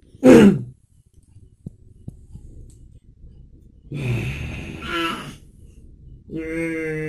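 A person's voice making wordless, moo-like sounds: a loud short call falling in pitch near the start, a breathy groan about four seconds in, and a steady held call near the end.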